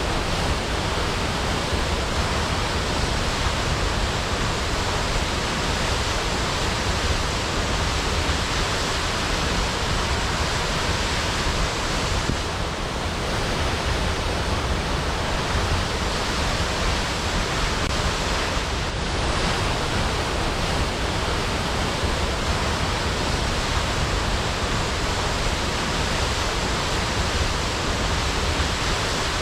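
Waterfall: water falling and splashing in a steady, dense rush.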